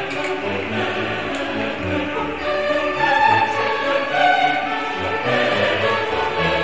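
Background music with choral singing.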